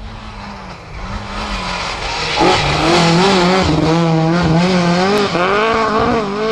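Ford Escort Mk2 rally car's engine revving hard as the car comes in and passes close by through a corner, getting loud about two and a half seconds in, its pitch rising and falling with the throttle.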